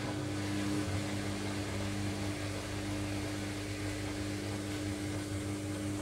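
Logik washing machine's drain pump humming steadily as it pumps water out of the drum ahead of an intermediate spin.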